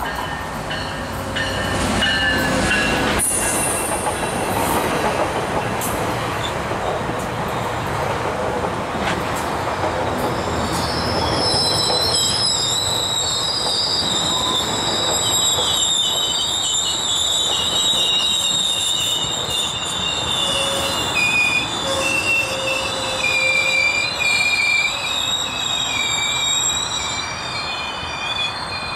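GO Transit train, a diesel locomotive and bilevel passenger coaches, rolling past close by: a loud rumble with some wheel clicks at first. From about ten seconds in, the wheels squeal in several high, sustained tones that waver in pitch as the coaches go by.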